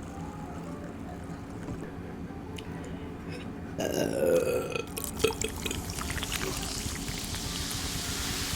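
A person burps once, loudly, about four seconds in, lasting about a second. A few sharp clicks follow.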